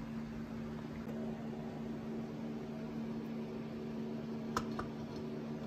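Steady low mechanical hum in a small room, with a couple of faint clicks near the end.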